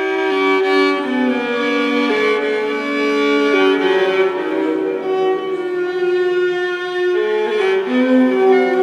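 Background music: a slow instrumental melody of long held, bowed-string notes that change pitch about once a second, with no percussion.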